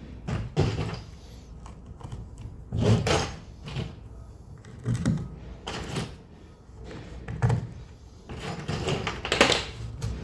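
Irregular wooden knocks, thuds and scrapes of timber framing pieces being handled and shifted into position, with about half a dozen heavier thuds spread unevenly through.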